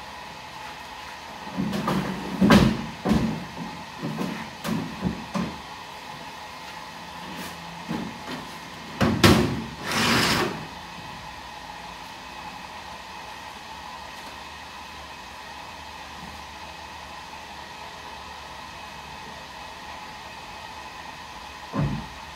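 Knocks and thumps of wooden bed-platform panels being handled and set down in the back of a Humvee camper, with two longer noisy sounds about nine to ten seconds in and a single thump near the end, over a steady background hum.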